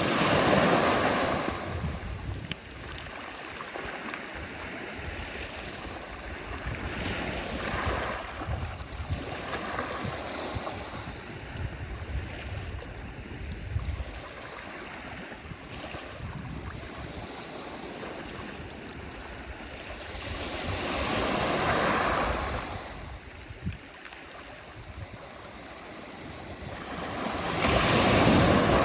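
Sea waves breaking and washing up the shore, each surge swelling and fading over a few seconds, with the biggest at the start, around 22 seconds and near the end. Low gusts of wind buffet the microphone.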